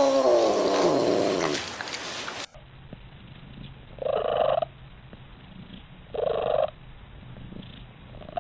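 A cat's long meow, falling in pitch, then another cat purring steadily with two short meows about two seconds apart.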